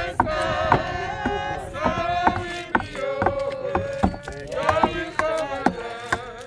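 Congregation singing a hymn in long held notes, with sharp percussive hits, about two to three a second, keeping an uneven beat under the voices.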